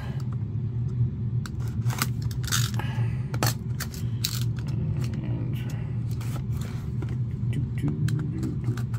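Box cutter blade slitting and scraping along the plastic shrink wrap on a trading-card box: a run of short, sharp scrapes and clicks, over a steady low hum.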